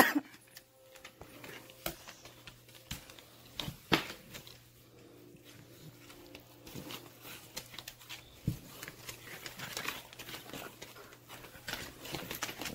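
Dogs scuffling in play on a hardwood floor: quiet, scattered claw clicks and knocks, the clearest about two and four seconds in, with light rustling of fur and bodies.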